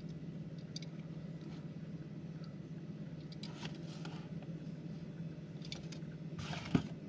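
Faint handling noise of fingers turning a small die-cast toy car, over a steady low hum, with a few light clicks and a short louder rustle near the end.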